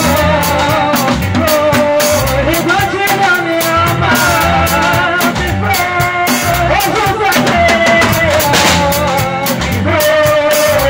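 Live gospel band music over loudspeakers: electronic keyboards playing a wavering melody line over a steady drum beat.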